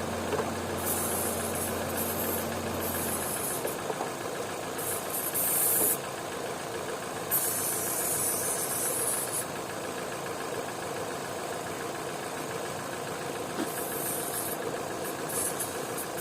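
Opel/Vauxhall petrol engine idling while an aerosol spray is hissed in several short bursts around the inlet manifold and its seals, a test for a vacuum leak behind the engine's high idle.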